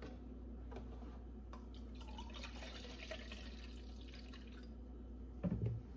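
Oat milk being poured into a measuring cup: a faint, steady pour that fills the middle few seconds, with a couple of light clicks before it.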